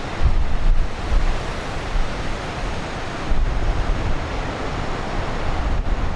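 Large typhoon-driven Pacific waves breaking and surging, a continuous rushing roar of surf that swells and eases. Strong wind buffets the microphone in gusts, adding a low rumble.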